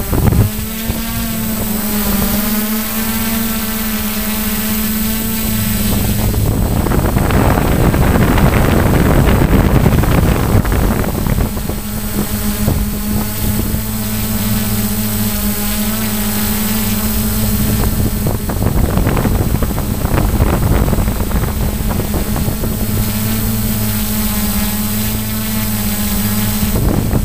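Radio-controlled model plane's motor and propeller running with a steady hum, heard from the onboard camera with wind rushing over the microphone. About six seconds in the hum gives way to wind rush for about five seconds, then comes back steady.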